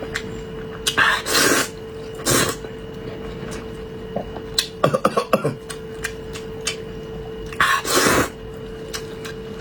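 Close-miked eating sounds from a man eating braised pork belly: four short noisy breathy slurps, with a run of quick wet smacking clicks about five seconds in. A faint steady hum runs underneath.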